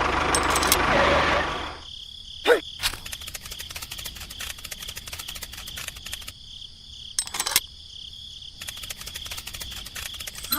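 A motor running, cutting off about two seconds in. After that a steady high-pitched trill goes on, with scattered clicks and two short sweeps.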